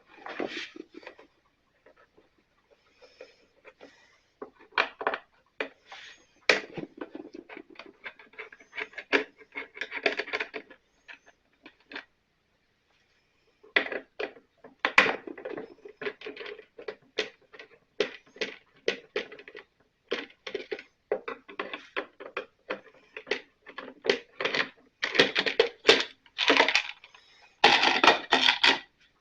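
Hand tools and the plastic and metal parts of a Stihl BR 600 backpack blower clicking, knocking, scraping and rattling during disassembly. The sounds are irregular, with a short pause about halfway, and grow busier and louder near the end.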